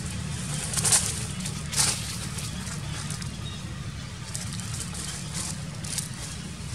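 Dry leaves rustling and crackling in short bursts, loudest about one and two seconds in with a few fainter rustles later, over a steady low hum.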